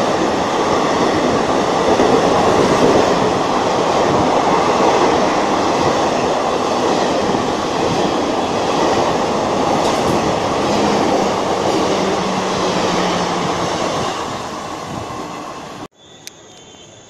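An express train running through a station platform at speed without stopping: a loud, steady rush of coaches and wheels on rail, with some clatter over rail joints. The sound fades near the end as the train passes, then cuts off abruptly to much quieter background about a second before the end.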